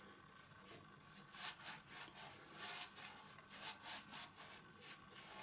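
A flat brush spreading a thin coat of varnish over a painting in quick back-and-forth strokes: faint, hissy swishes, about two or three a second.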